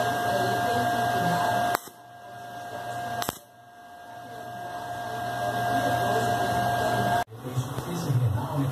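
TIG welding arc buzzing steadily while a small steel part is tack-welded with hand-fed filler rod. The arc cuts out about two seconds in, a sharp click follows, then it runs again and grows gradually louder before stopping suddenly near the end.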